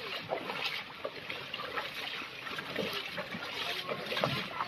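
Shallow floodwater sloshing and splashing around wading legs as an inflatable rescue boat is towed through it.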